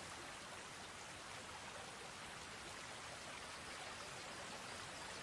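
Faint, steady rush of shallow river water flowing around rocks at the bank.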